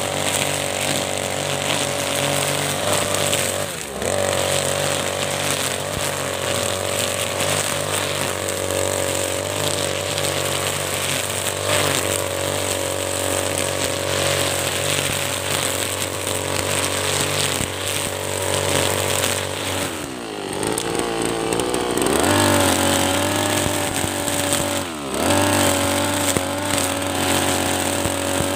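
Brush cutter engine running at high speed, its nylon trimmer line whipping through thick lalang grass. The engine dips briefly about four seconds in, eases off for a couple of seconds around twenty seconds in, then revs back up, with another short dip soon after.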